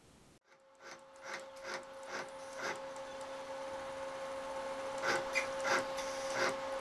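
A CNC router's motors hum steadily, starting about half a second in, with a run of short ticks about two a second in two bunches, typical of the machine being jogged in small moves to line the bit up on a start point.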